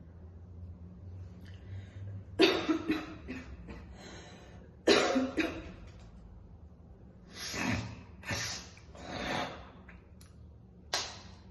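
A woman's smoker's cough: two hard coughing fits a couple of seconds apart, each a sharp first cough followed by a few smaller ones, then three softer breathy bursts and one short cough near the end.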